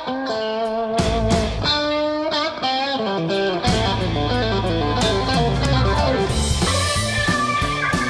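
Background music: an electric-guitar-led blues-rock track.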